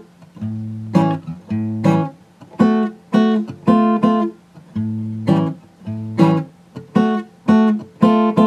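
Acoustic guitar strumming chords, about two strums a second.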